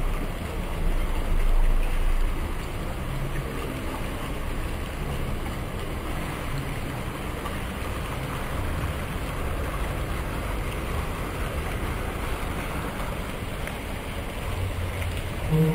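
Pond fountain water splashing steadily onto the surface of an ornamental pond: a spout pouring into the pond and a bell-shaped fountain falling back onto the water.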